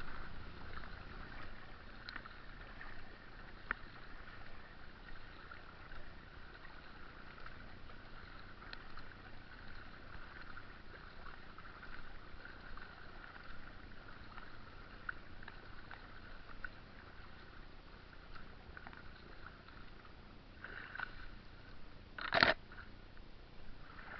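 Kayak being paddled on a small river: steady water swishing around the hull and paddle, with small drips and ticks. There is one sharp, loud hit near the end.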